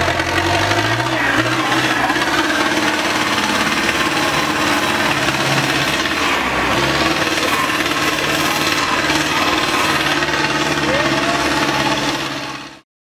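Tractor diesel engine running hard under load while pulling through deep mud and up a muddy slope, its pitch shifting with the throttle. The sound fades out near the end.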